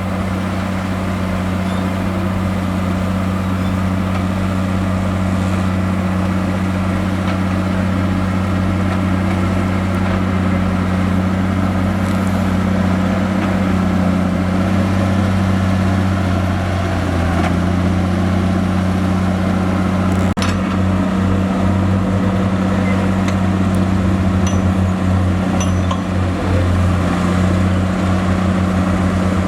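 Heavy diesel engine of earthmoving machinery running steadily under load, a deep even drone, with a single sharp knock about two-thirds of the way through.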